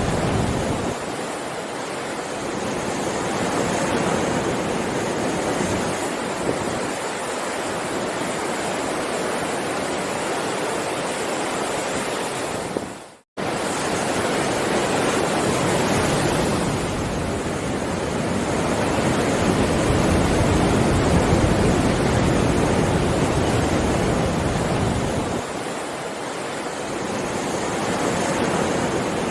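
Heavy ocean surf: a continuous wash of breaking waves that slowly swells and eases. Near the middle it fades to silence for a moment and cuts straight back in.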